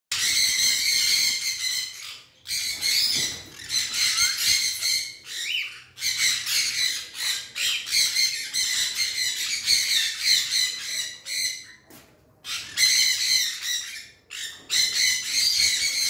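Blue-and-gold macaw squawking: loud, harsh calls repeated in runs of a second or more, with a few short pauses between them.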